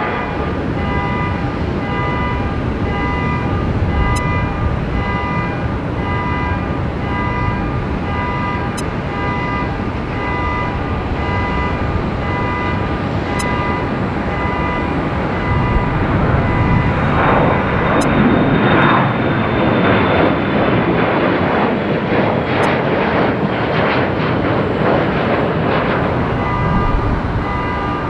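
Embraer E175 regional jet's turbofan engines: a steady whine of several fixed tones over a dense jet rumble. About halfway through, a louder jet rush swells in for several seconds, then eases back to the whine.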